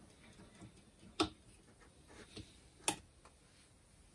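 Small flat screwdriver prying a steel circlip off a fan's blade shaft: two sharp metallic clicks about a second and a half apart, with a few fainter ticks between and after.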